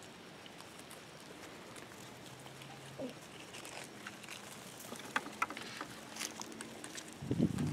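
Spanish goats browsing on cut cedar trees: scattered light crackling and snapping of twigs and foliage. A goat bleats near the end.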